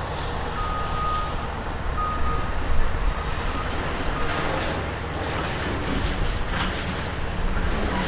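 Diesel engine of a CAT 336E excavator running steadily while it works a pile of scrap metal, with a few short backup-alarm beeps in the first few seconds and scattered clattering of metal debris later on.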